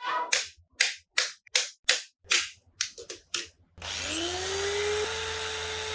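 A run of short, sharp bursts, about three a second, stops just before four seconds in. Then an electric power tool's motor spins up, its whine rising in pitch, and runs steadily.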